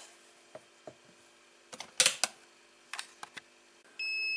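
Several sharp clicks and knocks from handling an aluminium external hard drive enclosure, the loudest about two seconds in, over a faint steady hum. About four seconds in, a bright electronic tone starts.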